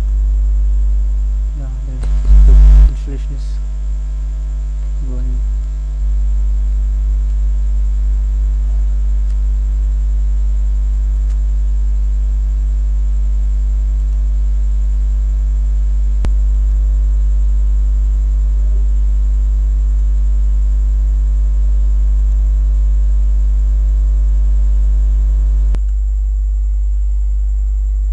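Steady electrical mains hum in the recording, low and buzzy with many evenly spaced overtones. A brief loud burst of noise comes about two seconds in, a faint click comes about halfway, and the hum steps down slightly near the end.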